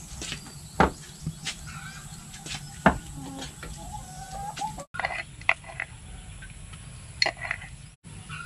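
Chickens clucking in the background, with a few sharp knocks and clicks of kitchenware being handled; the loudest knocks come about a second in and near three seconds.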